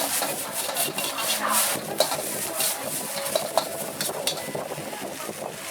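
Metal spatula scraping and clanking against a wok as noodles or rice are stir-fried, with frying sizzle underneath and irregular sharp knocks of metal on metal.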